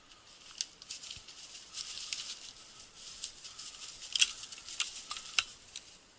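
Movement through dry brush: irregular crackling and rustling with a few sharp snaps, the loudest a little after four seconds in.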